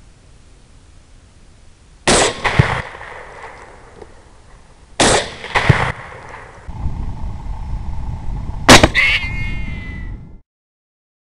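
Rifle shots from a 6.8 SPC AR-style rifle. A shot comes about two seconds in and another about five seconds in, each followed half a second later by a second sharp crack. A single louder shot comes near the end over steady background noise, and the sound then cuts off suddenly.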